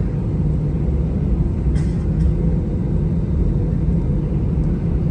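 Steady low rumble inside a jet airliner's cabin, its engines running as it rolls across the runway threshold for take-off.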